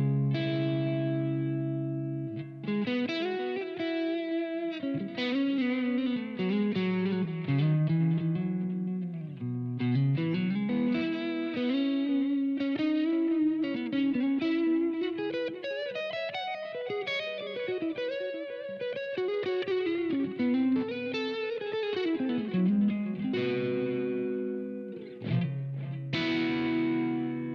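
Electric guitar played through a Blackstar AMPED 2 pedal power amp with built-in effects. It opens on held, ringing chords, moves into a single-note lead melody with bends and slides, and returns to chords near the end.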